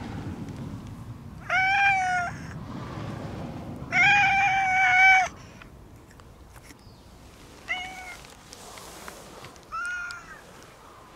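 A brown tabby-and-white cat meowing four times, the second call the longest and loudest, the third a short one.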